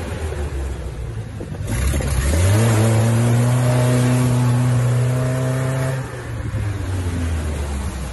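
UAZ off-roader's engine revving hard as it pushes through a muddy creek: the revs climb about two seconds in, are held high for a few seconds, then drop back about six seconds in. Water and mud splash around the wheels.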